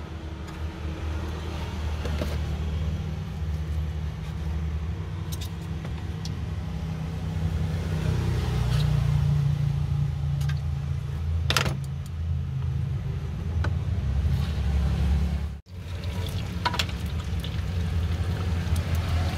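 A steady low rumble, with a few sharp clicks of a steel knife and metal tongs on a plastic cutting board as a fried pempek is sliced.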